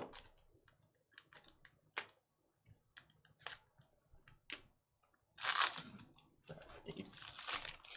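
Trading cards being handled and sorted at a table: irregular light clicks and taps, with two longer papery rustles about halfway through and near the end.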